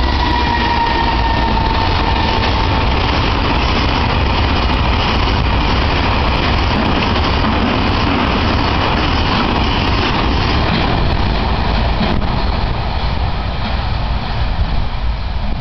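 EF210 electric freight locomotive passing at close range, with a whine that falls slightly in pitch in the first two seconds, then the steady rolling noise of a long train of Taki tank wagons going by, thinning near the end as the train recedes.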